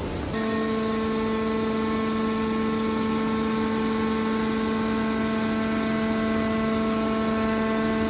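Hydraulic power unit of a scrap metal baler, an electric motor driving the hydraulic pump, running under load with a steady hum at one fixed pitch while the hydraulic cylinder folds the baler's lid down onto a charge of coiled scrap wire.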